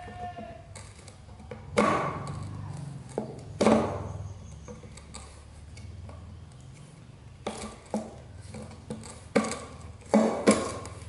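A baby monkey's hands knocking and patting on a milk-formula can: a string of uneven, sharp taps and knocks with a short ring, several of them bunched near the end.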